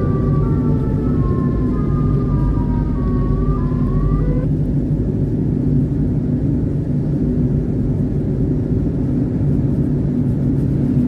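Steady low rumble of a vehicle on the move. Over it, for the first four or so seconds, several wailing siren-like tones slide and fall in pitch, one rising just before they cut off suddenly.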